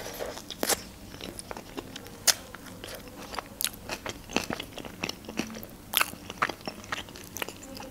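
Close-miked eating of a hot dog in a bun with lettuce: a bite near the start, then chewing with irregular crunches and sharp mouth clicks.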